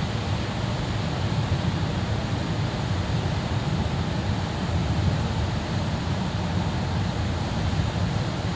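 Steady road and tyre noise with low engine rumble heard inside a moving car's cabin, an even, unbroken rush.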